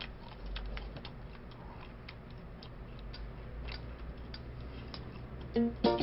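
Scattered soft clicks over a low steady hum. Near the end a song starts, with plucked strings.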